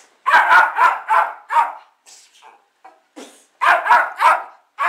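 Small dogs barking: a quick run of sharp barks in the first half, a few softer sounds, then another quick run of barks near the end.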